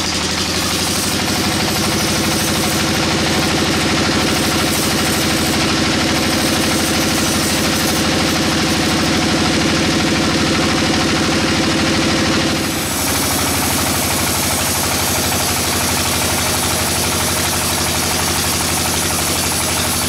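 Sawmill band saw running and ripping lengthwise through a teak log: a steady machine drone with the blade's constant rasp through the wood. A little past halfway the sound dips briefly and then carries on, slightly changed.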